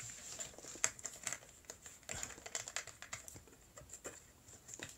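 Scattered light clicks and taps, a few a second and uneven, the small handling and tapping sounds of someone at a desk or screen.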